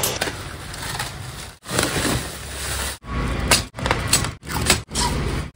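Outdoor rumble and hiss in several short clips joined by abrupt cuts.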